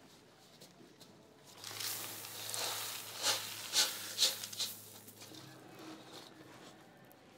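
Crushed stone poured from a bucket onto a concrete floor: a rush of clattering gravel lasting a few seconds, with three sharper knocks near its loudest point.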